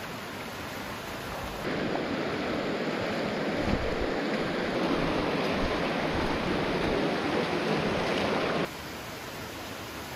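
Steady rush of shallow creek water running over slickrock and small cascades. It grows louder about two seconds in and drops back abruptly near the end.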